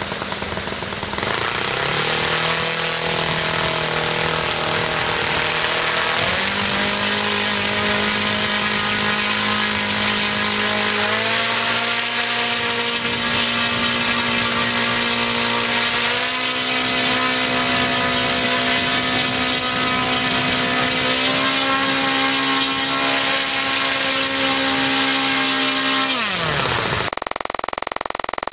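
O.S. FS-200S two-cubic-inch four-stroke glow engine running, opened up about a second in, with its speed stepping higher about every five seconds. Near the end its pitch falls steeply as it winds down.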